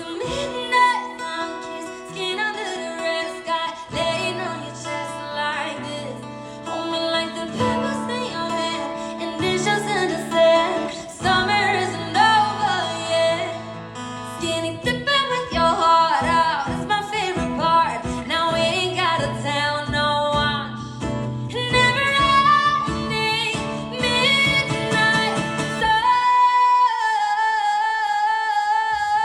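A woman singing a pop song over instrumental backing, the melody moving freely and ending on a long held note with vibrato near the end.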